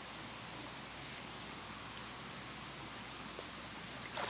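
Steady chorus of insects with two constant high-pitched tones, and a sudden splash of water right at the end.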